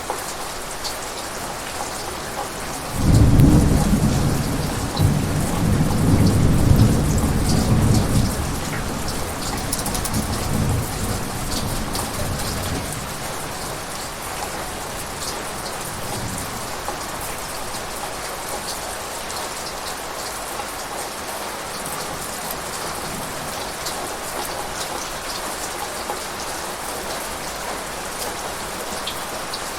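Steady heavy rain, with a roll of thunder that breaks in suddenly about three seconds in, rumbles loudly for several seconds and fades away by about thirteen seconds, leaving the rain alone.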